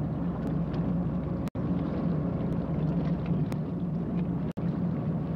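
A boat's engine running steadily with a low drone, cut twice by sudden brief dropouts in the sound, about a second and a half and about four and a half seconds in.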